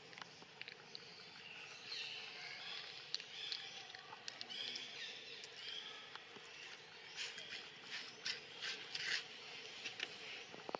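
Faint high-pitched animal squeaks and chirps over a quiet outdoor background, then a run of crackling rustles from dry leaves about two-thirds of the way in.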